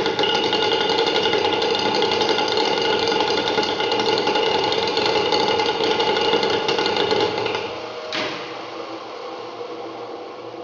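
Prototype rotary engine and its coupled motor-generator running on a test bench: a fast mechanical rattle with a steady whine. About eight seconds in there is a click, after which the machine gets quieter and fades.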